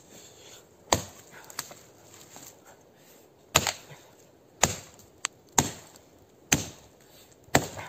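Bellota axe chopping into a fallen, still-green pine trunk: six sharp strikes, one about a second in and then roughly one a second from about three and a half seconds in.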